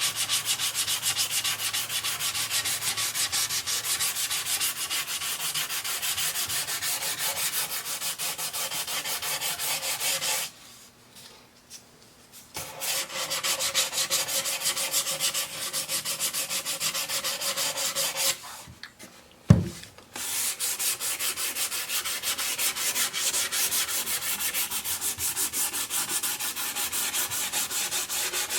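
Sandpaper sanding wooden cabinet doors, 220 grit: a steady, rapid rasping that stops twice briefly, with a single sharp knock during the second pause.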